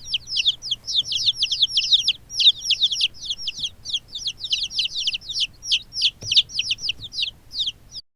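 A group of young chicks peeping: many rapid, high, down-sliding chirps, several a second and often overlapping.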